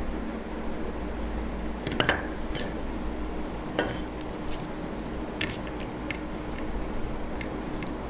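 Dal poured from a steel bowl onto a plate of rice, with a few sharp clinks of the steel bowl. Then rice and dal are squished and mixed by hand, over a steady low hum.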